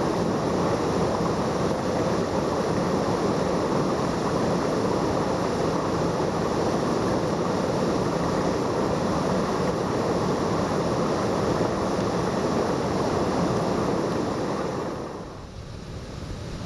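Steady rushing of wind buffeting the camera microphone, dropping away near the end.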